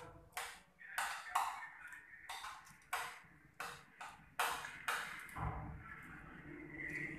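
Spoon clicking and scraping against a plate as food is scooped up, about two sharp clicks a second. The clicks stop about five and a half seconds in, giving way to a steadier low rumble.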